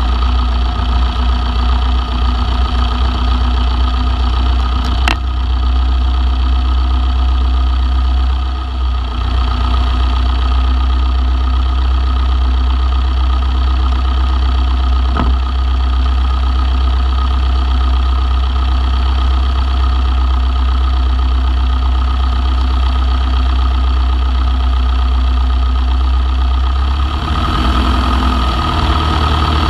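Long-EZ's piston engine running steadily, heard through an aircraft-mounted camera, with a heavy low rumble; the engine note shifts about 27 seconds in.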